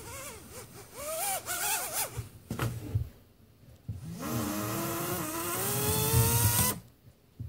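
Micro whoop quadcopter's NewBeeDrone Plaid motors spinning up on the desk: a whine that climbs in pitch for about two and a half seconds, then cuts off suddenly. The owner says one of the motors is burned out. A single knock comes shortly before the run-up.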